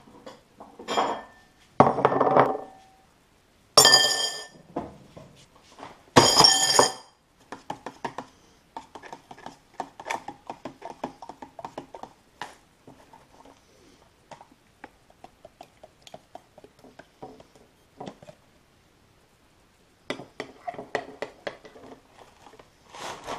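Crockery and a spoon clinking on a kitchen counter while breakfast is put together: four loud knocks with ringing in the first seven seconds, then many light taps and ticks, and another cluster of taps near the end.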